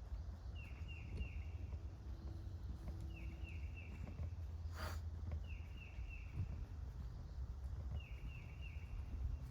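A songbird repeating a short phrase of three or four quick downward-sliding notes about every two and a half seconds, over a steady low rumble, with a single sharp click about five seconds in.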